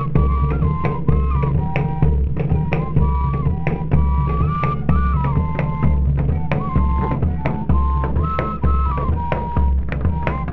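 Pífano (fife) music: a pífano plays a stepping melody over steady drum beats and percussion strokes.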